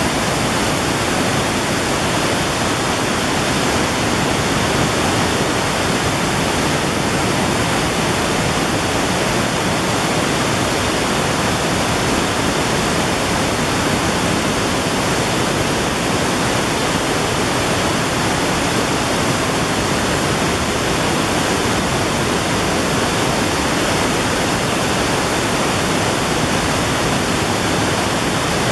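A river's whitewater rushing and churning between large boulders as it pours into a narrow rock cleft and goes underground: a loud, steady rushing noise.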